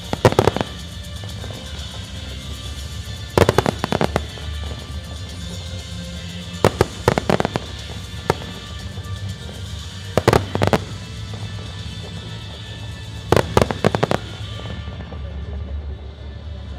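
Aerial firework shells bursting in quick clusters of several sharp bangs, a new cluster about every three to four seconds.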